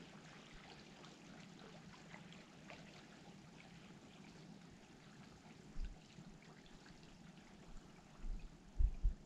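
Faint trickling and lapping of lake water at the shoreline, with scattered small ticks. A few short low thumps come about six seconds in and twice near the end.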